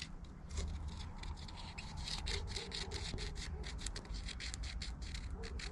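Quick, irregular rasping strokes of a hand tool working at hardened fiberglass, several strokes a second, over a steady low rumble.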